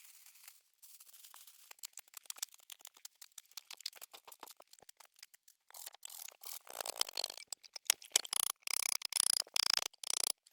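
Irregular dry crackling with many sharp clicks and scrapes, sparse at first and growing denser and louder from about six seconds in.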